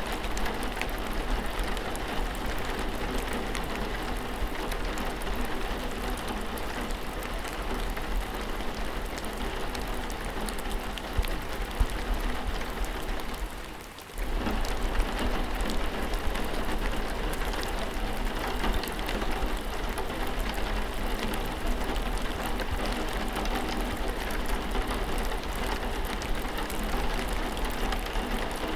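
Steady rain falling, an even hiss of many drops. About halfway through it fades for under a second, then cuts back in at full level.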